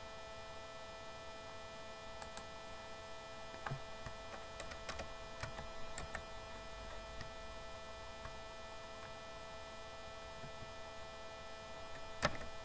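Steady electrical hum on the recording, with scattered soft computer-mouse clicks, the sharpest near the end.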